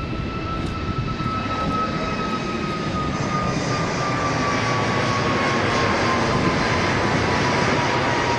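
Airliner taking off and climbing out: steady engine noise that grows a little louder over the first few seconds, with a high whine slowly falling in pitch.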